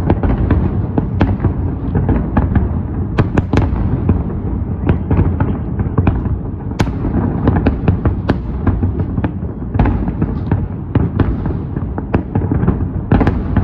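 Fireworks display at full intensity: shells bursting one after another, many sharp cracks and bangs over a continuous low rumble of overlapping explosions.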